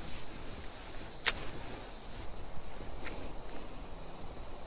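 Insects buzzing in a steady high-pitched drone that cuts off suddenly about two seconds in, with one sharp click a little after the first second.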